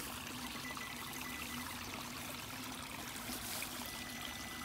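A small creek waterfall trickling and splashing in a steady flow.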